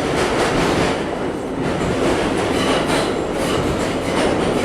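R32 subway car running on the rails, heard from inside the car: a steady rumble with clacking of the wheels over rail joints.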